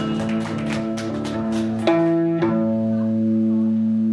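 Live rock band playing electric guitars and bass over drums. About two seconds in, a new chord is struck and left ringing as the drums stop.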